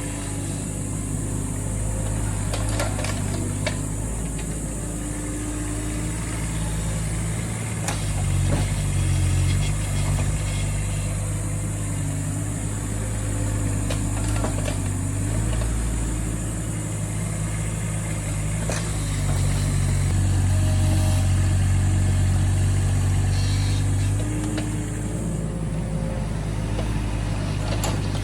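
Hydraulic excavator's diesel engine running while digging, its note rising and falling with the load, louder for a couple of seconds about a third of the way in and again for several seconds past the middle, with a few short knocks.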